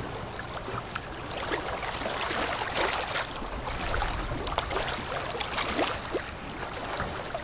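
Low steady rumble of a passing container ship under outdoor wind and water noise, with many short high ticks scattered throughout.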